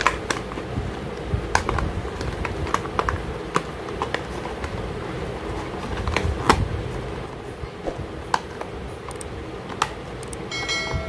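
Hard plastic toy parts clicking and knocking irregularly as a plastic toy jeep is handled and its pieces pushed together, over a steady low hum. A short chime sounds near the end.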